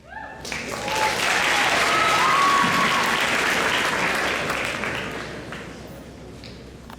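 Crowd applauding and cheering, with a few high whoops early on. The applause swells quickly, is loudest about two to three seconds in, then fades away over the last few seconds.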